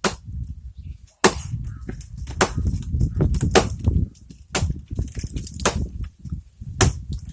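Axe blows chopping into a tree trunk, seven sharp strikes about once a second.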